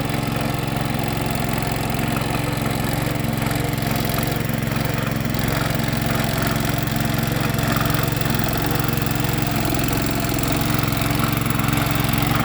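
Tractor engine running steadily, an even low drone with no change in speed.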